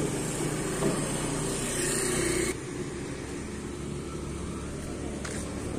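Small pickup truck's engine idling steadily; a higher hiss over it cuts off about two and a half seconds in.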